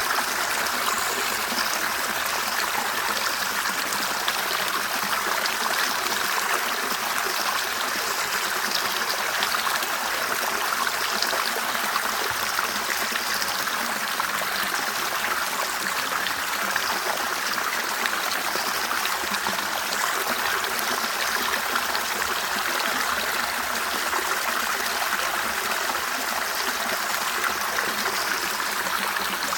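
Clear river water flowing and burbling over stones, a steady continuous rush with small trickling splashes.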